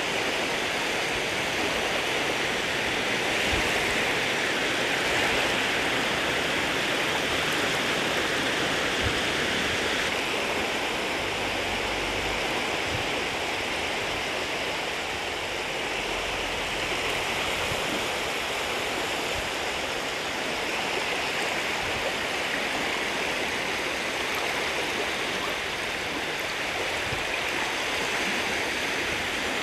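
Steady rush and hiss of shallow seawater washing at the water's edge, an even sound with no breaks.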